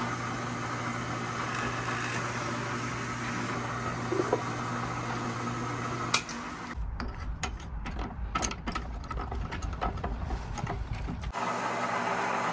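Drill press motor running steadily as a small bit drills a pilot hole through a wooden cigar box. Just after six seconds it shuts off with a click. For about four seconds after that come irregular metallic clicks and knocks as the bit is changed in the chuck. Near the end the motor starts again and runs steadily with a Forstner bit fitted.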